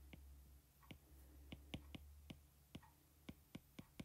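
Faint, irregular clicks of a stylus tip tapping on a tablet's glass screen during handwriting, a dozen or so, about three a second.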